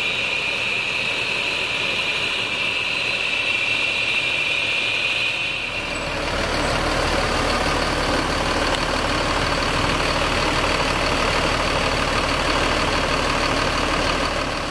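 Bus diesel engine idling in its open rear engine bay, belts and pulleys turning. For about the first six seconds a steady high whine stands out. After that a steady deep engine rumble takes over.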